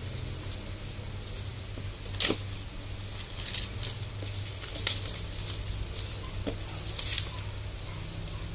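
Clear plastic shrink wrap crinkling and rustling as it is peeled off a cardboard box, with a few sharper crackles about two, five and seven seconds in. A steady low hum runs underneath.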